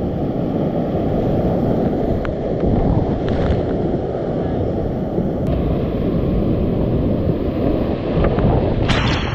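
Whitewater rapids rushing around a kayak as it paddles down through them, close to the camera's microphone, a steady heavy wash of water with a few sharp clicks and a louder burst near the end.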